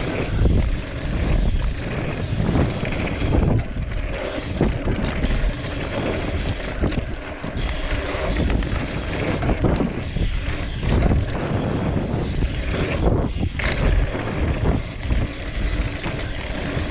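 Mountain bike riding down a dry dirt trail: tyres rolling and bumping over the dirt, with wind rushing over the microphone. It is a steady rumble that surges unevenly with the bumps.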